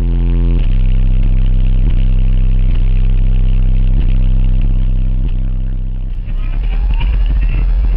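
Sundown Audio car-audio subwoofers playing very loud, deep sustained bass notes, heard from outside the vehicle. The notes step to a new pitch every second or two and fade near the end.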